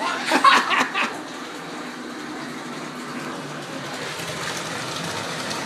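Water running steadily into a bathtub, after a few short sharp sounds in the first second.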